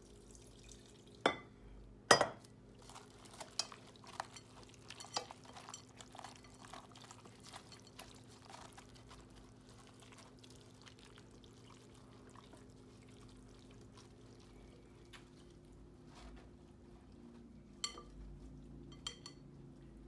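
Bread dressing being mixed by hand in a bowl: two sharp knocks of a dish near the start, then soft wet mixing with small clicks of crockery, and a few more clinks near the end. A faint steady low hum runs underneath.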